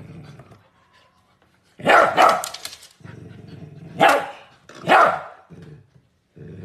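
Puppy barking in sharp, loud barks: two close together about two seconds in, then single barks about four and five seconds in, with a quieter low growl-like rumble between them.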